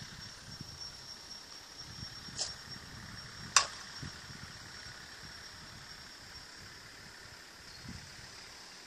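A slowpitch softball hit off a batting tee with a Resmondo slowpitch bat: one sharp, loud crack of bat on ball a little over three seconds in. A fainter click comes about a second before it.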